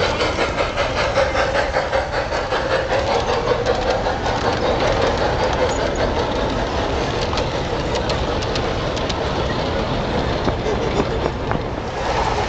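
Garden-scale model train rolling past on its track, its wheels clicking steadily as the locomotive and cars go by.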